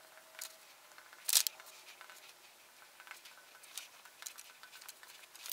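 Marker pen writing on a glass lightboard: faint, scattered short scratches and taps of the tip on the glass, the loudest about a second and a half in.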